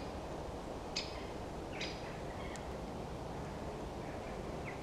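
Short, high chirps from a small bird, about one a second, then stopping about two seconds in, over steady outdoor background noise.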